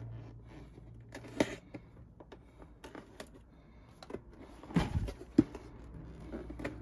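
Hands handling a large cardboard model-kit box while trying to open it: scattered light taps, scrapes and clicks on the cardboard, with louder knocks about a second and a half in and again around five seconds in.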